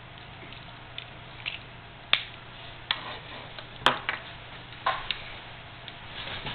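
A metal connector back shell and its cable being handled and set down on a wooden table: a series of about six sharp clicks and knocks, the loudest about two and four seconds in, over a faint steady low hum.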